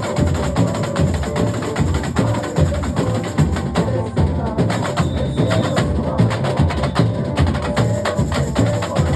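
Carnival percussion section (batería) playing a dense, driving rhythm: deep bass drums under sharp, clicking high strikes, going on without a break.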